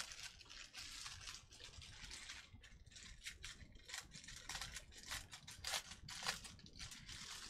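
Small plastic bags of diamond-painting drills being handled, crinkling with irregular light clicks and rattles.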